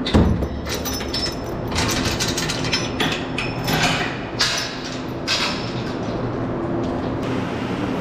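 Steel pipe gate being unchained and swung open: a knock at the start, then the chain rattling and the metal gate clanking for several seconds, over a steady machinery hum.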